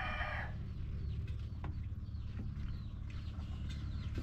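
A rooster's crow trailing off in the first half second, then a quiet steady background with a few faint high chirps and two soft knocks.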